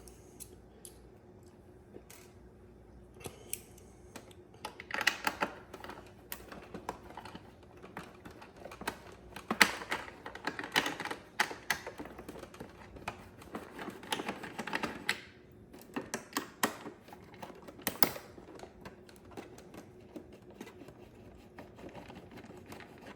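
Hand work on a Keurig K-Duo Essentials coffee maker's plastic housing: scattered clicks and taps, with a few short scraping bursts, as small plugs are pried out and screws turned with a screwdriver.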